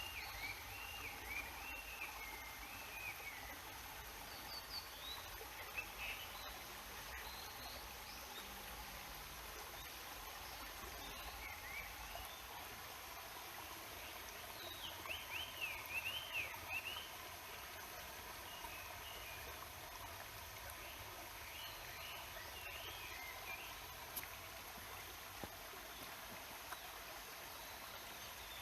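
Stream water running steadily, with a songbird singing short warbled phrases on and off, loudest about halfway through.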